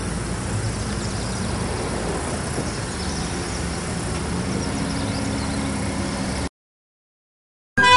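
A steady mechanical rumble with a low hum, which cuts off abruptly about six and a half seconds in.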